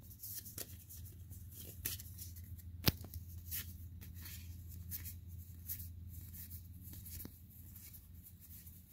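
Pokémon trading cards being flipped through by hand: light, scattered rustles and flicks of card stock, with one sharp click about three seconds in, over a steady low hum.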